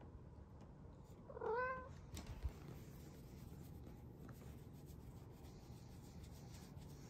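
A cat gives one short, sharp cry that rises then falls in pitch, about a second and a half in: an annoyed cry at another cat that has come too close. A brief knock follows just after.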